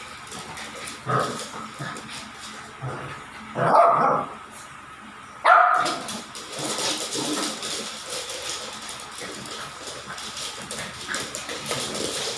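A pet dog barking during play: a short bark about a second in, a longer one around four seconds, and the loudest, sharpest one at about five and a half seconds, followed by a stretch of quieter scratchy, clicky noise.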